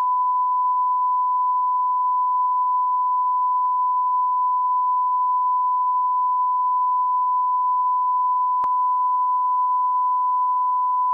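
Continuous test-card tone, the steady beep laid over television colour bars, holding one pitch without a break.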